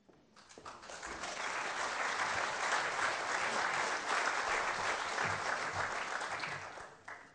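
Concert-hall audience applauding, swelling over the first second or so and dying away near the end.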